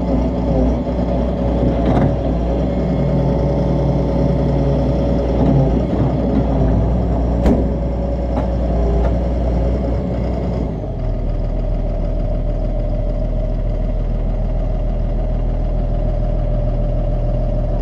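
Doosan DX140 excavator's diesel engine running while its newly repaired hydraulic pump is tested, with sharp knocks about 2 and 7.5 seconds in. About 11 seconds in the sound changes abruptly and settles into steadier, duller running.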